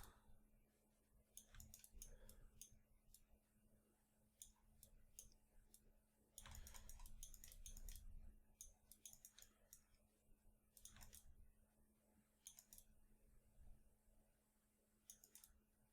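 Faint, scattered clicking of a computer mouse and keyboard, over a low steady hum.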